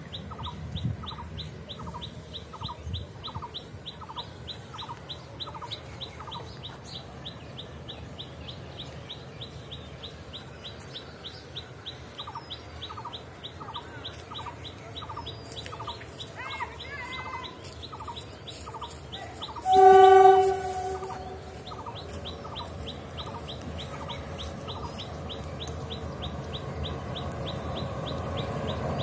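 Birds call in repeated clucking series over a fast, steady high ticking, while an approaching Indian Railways diesel locomotive's low rumble grows louder toward the end. About two-thirds of the way through, the locomotive's horn sounds once for about a second, the loudest sound.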